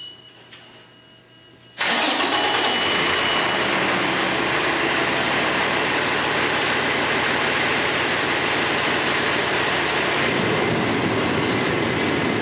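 A fire engine's pump and engine come in suddenly about two seconds in and run loud and steady with a rushing sound as the hose line is charged.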